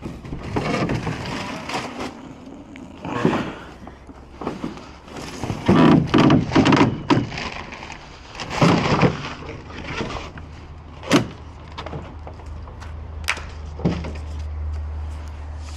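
Irregular knocks, bangs and scrapes of wood debris being handled and moved, loudest in a cluster in the middle, with two sharp clicks later on. A low steady rumble sets in during the second half.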